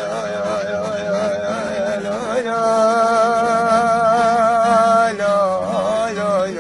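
A solo voice singing a slow, ornamented Middle Eastern-style chant over a steady drone, with wavering vibrato at first and one long held note through the middle.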